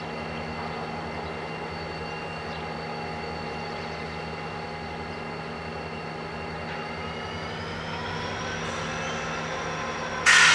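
Norfolk Southern diesel locomotives working under power as the train pulls out, a steady engine drone whose higher tones rise in pitch about two-thirds of the way through as it notches up. A short, loud, noisy burst comes just before the end.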